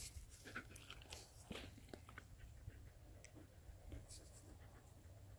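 Near silence, with faint soft scrapes and clicks of fingers handling and rubbing a wet silver coin.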